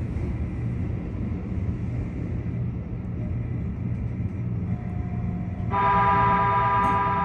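Keikyu electric train running with a steady low rumble. Nearly six seconds in, the train's horn sounds one loud, steady blast lasting about a second and a half.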